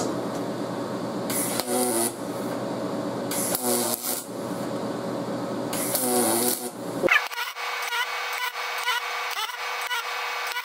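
MIG welder arc crackling on a cast iron exhaust manifold in short bursts, three in the first seven seconds, as a blowout in the weld is filled in. About seven seconds in the sound turns thinner, an evenly repeating crackle.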